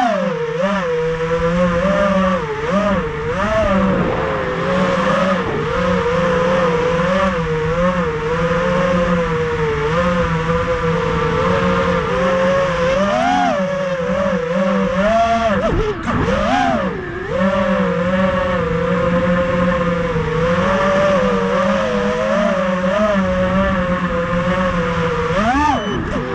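FPV racing quadcopter's four Racerstar 2205 2300kv brushless motors spinning three-blade 5-inch props, a loud whine whose pitch rises and falls continuously with the throttle. Around the middle the pitch drops sharply twice and climbs straight back.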